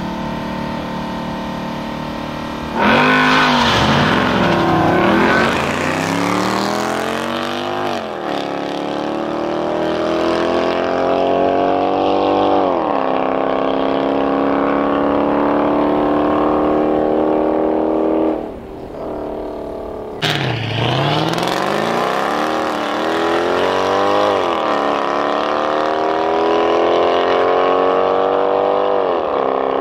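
Supercharged 5.5-litre V8 of a Mercedes-Benz E55 AMG with a decatted exhaust, launching hard on a drag strip alongside another car. The engine note climbs and drops back at each upshift as the cars pull away. It happens twice: a first launch about three seconds in, then, after a brief drop-off and a cut, a second launch about twenty seconds in.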